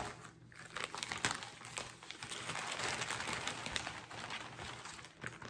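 Rustling and crinkling of cross-stitch projects being handled and shuffled, with many small clicks and taps; a little louder midway.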